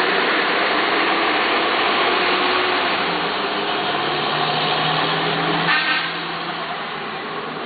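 Road traffic: the steady engine and tyre noise of vehicles driving along a street, with a short car-horn toot about six seconds in, after which the traffic noise is a little quieter.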